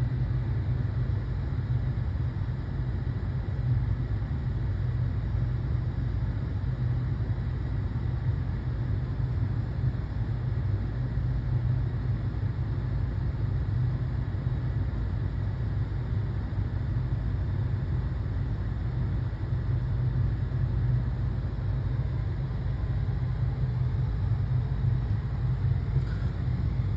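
Steady low rumble that does not change, with little hiss above it.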